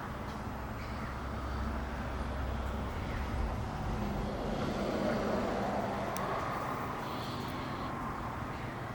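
Steady low hum of a vehicle engine running at idle, with outdoor background noise.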